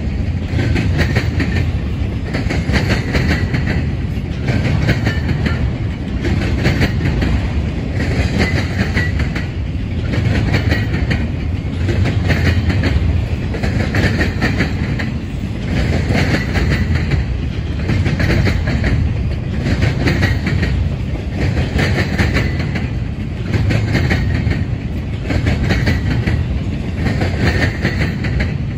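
Double-stack intermodal freight cars rolling past at close range: steel wheels rumbling and clicking on the rails. The sound swells and fades about every two seconds as the cars go by.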